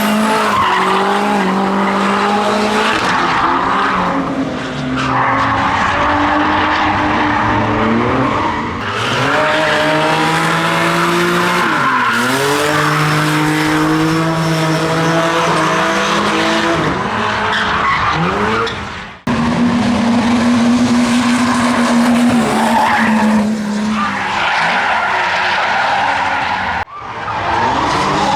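Drift car engine held at high revs over a steady tyre screech, its pitch stepping up and down as the throttle is worked. The sound cuts off sharply twice, about two-thirds of the way in and near the end.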